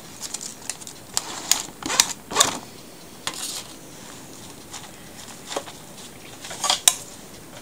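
Kitchen handling noises: grated carrot tipped from a plastic plate into a stainless steel mixing bowl, the plate set down, then scattered light clicks and scrapes against the bowl, with two sharp clicks near the end.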